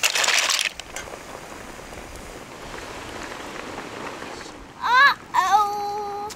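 Liquid poured onto hot mussels in a steel cauldron over a wood fire, sizzling: a loud hiss that drops to a fainter steady sizzle after the first second. Near the end, brief pitched sounds that bend up and down, then a held tone.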